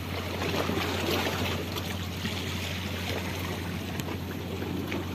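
Steady wash of sea waves on a rocky shore with wind on the microphone, a few faint ticks heard through it.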